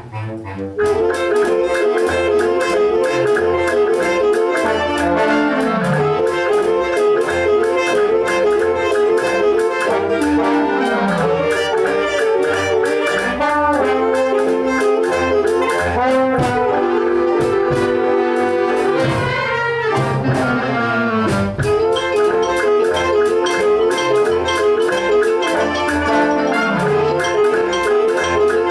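Amateur wind band playing with saxophones and brass, low notes sliding downward several times, after a brief break at the very start.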